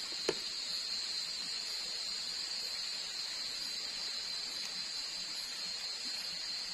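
A steady high-pitched chorus of night insects over the low hiss and crackle of a wood-ember fire grilling a chicken, with one sharp pop from the fire just after the start.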